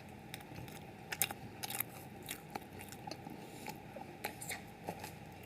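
Close-miked mouth sounds of eating a Little Debbie snack cake: scattered soft bites, crunches and chewing clicks, about ten in all, with no rhythm, over a faint steady hum.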